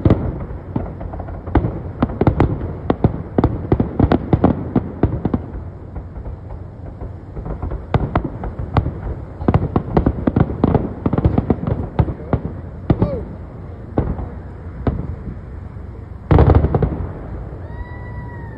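Fireworks going off in quick succession: a dense run of bangs and crackles, with one louder, longer blast about sixteen seconds in.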